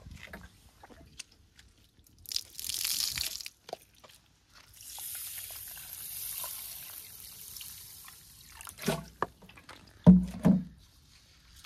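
Water pouring and splashing in two spells, a short one and then a longer, softer one, followed by a few loud clunks near the end.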